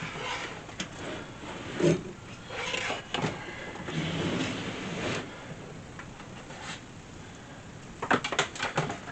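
Handling noises while a diesel heater is being fitted up: scattered clicks and knocks with short rustles, and a quick run of clicks near the end. The heater itself is not running.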